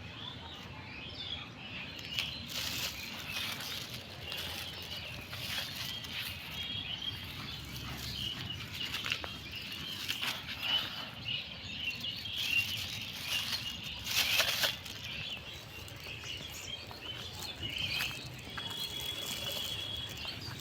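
Small birds chirping steadily in the background, with scattered rustling and crackling as litter is picked up and handled. The loudest rustles come a couple of seconds in, about halfway through and about two-thirds of the way through.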